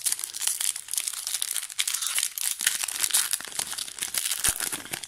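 Foil wrapper of a Pokémon card booster pack crinkling as it is handled: a dense crackle of small clicks, with one low knock near the end.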